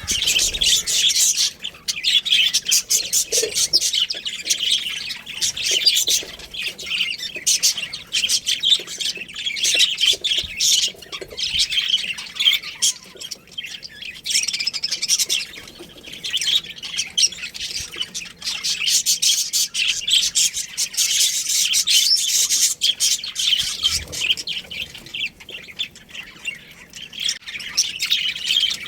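Many small birds chirping and squawking in a dense, continuous high-pitched chatter.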